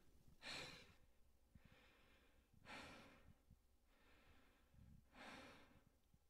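A person breathing into a close-held vocal microphone: three faint breaths, about two and a half seconds apart.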